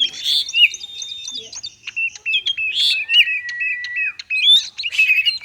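Oriental magpie-robin (kacer) singing a fast, varied 'konslet' song. It is a jumble of quick chirps and whistles, with a long high whistle in the first second or so and a long lower whistle from about three to four seconds in. This erratic song is the kind used as a lure to set a reluctant kacer singing.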